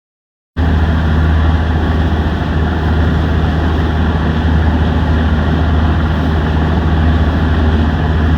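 Fishing boat's engine running steadily underway, a loud low drone that starts abruptly about half a second in.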